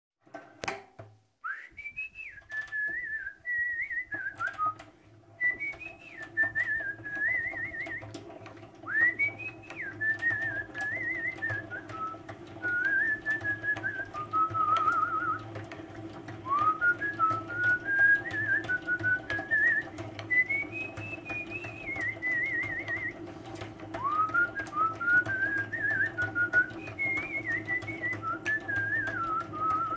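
A person whistling a tune in rising and falling phrases with quick trills, over a honey extractor spinning its frames in a metal drum: a steady drive hum with light clicking and rattling.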